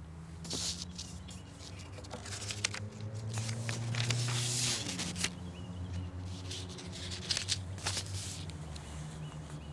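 Outdoor ambience: a steady low hum that swells for a couple of seconds in the middle, with scattered light clicks and small knocks.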